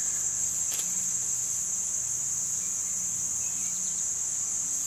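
Insects in summer weeds making a steady, unbroken high-pitched drone.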